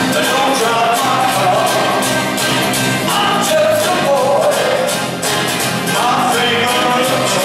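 Acoustic rock band playing live: strummed acoustic guitars and drums keeping a steady beat, with singing over the top.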